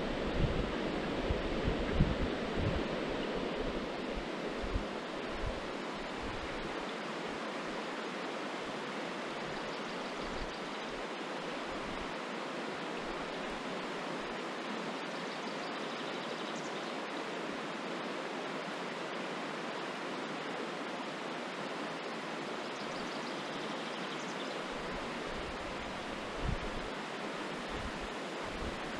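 Shallow river water running over a stony bed, a steady rushing. Gusts of wind buffet the microphone in the first few seconds and again near the end.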